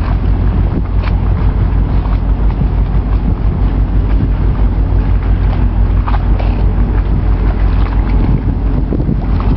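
Wind buffeting the microphone as a heavy, steady low rumble, with a faint steady engine drone beneath it.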